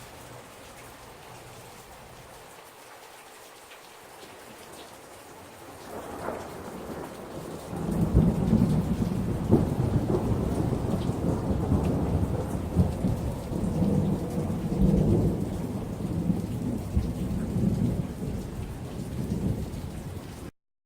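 Rain with thunder. At first there is only a faint hiss of rain. From about six seconds in, a deep rumble of thunder builds, and it stays loud and uneven until it cuts off abruptly near the end.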